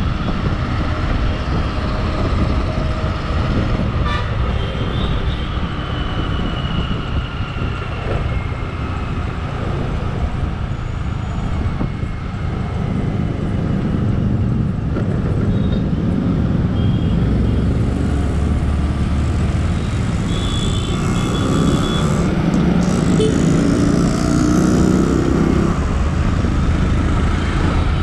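Motorcycle riding through city traffic: steady engine and road noise with wind on the microphone, and other vehicles' horns tooting briefly a few times.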